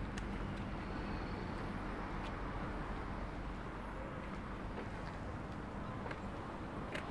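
Distant city traffic, a steady hum of cars and buses heard from high above the streets, with a few faint clicks.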